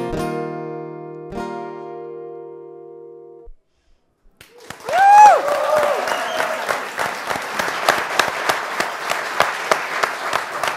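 A final acoustic guitar strum left ringing, stopping abruptly about three and a half seconds in. After a second of silence an audience breaks into applause, with a loud cheer as it starts.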